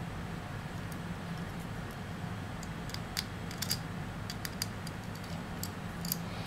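Light, irregular clicks and ticks of a tiny screw being driven into an iPod Nano 6th gen's metal case with a small screwdriver, over a faint steady low hum.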